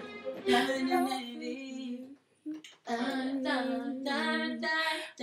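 A woman singing long held notes with no instruments, breaking off briefly about halfway through.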